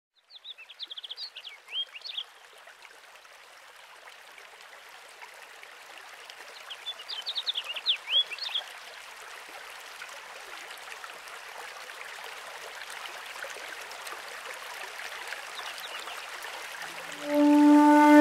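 Nature recording of a running stream, with two short spells of bird song chirping over it: one near the start and one about eight seconds in. The water grows slowly louder, and near the end music with held notes begins over it.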